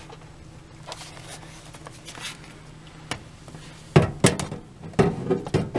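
Low steady hum, then about four seconds in a quick run of six or so knocks and clunks as laptops are pushed and shifted inside a small metal laptop safe.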